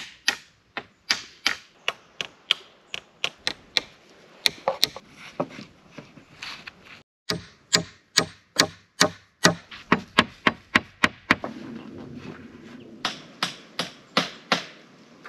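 Rapid chopping, a blade striking wood about three times a second in sharp, even strokes, with a short break about seven seconds in.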